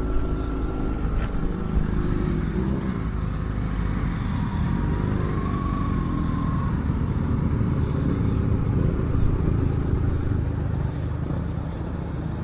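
Motorcycle engine running steadily at road speed, with continuous road and wind noise.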